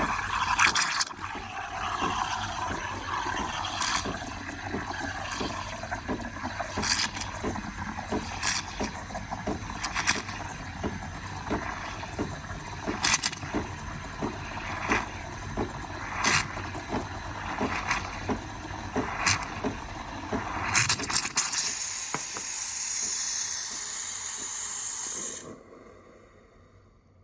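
DeLonghi Magnifica ESAM3300 espresso machine's steam wand frothing milk: a steady hiss with irregular pops, turning to a louder, higher hiss for the last few seconds before the steam is shut off abruptly near the end.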